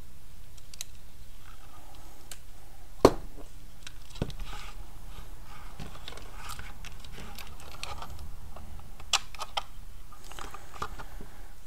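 Hands feeding thin wires through a 3D-printed plastic blaster grip: light scraping and rustling with scattered small clicks, the sharpest about three seconds in.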